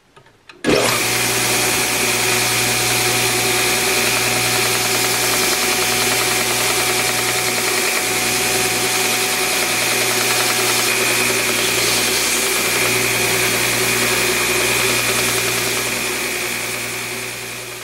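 Belt sander switched on: its motor starts abruptly under a second in and runs steadily with a steady whine while the edge of a leather knife sheath is sanded on the belt, then winds down near the end as it is switched off.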